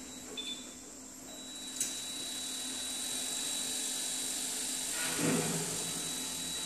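Electric motors of a small mobile warehouse robot running with a steady high whine that comes in about a second in, swelling briefly about five seconds in.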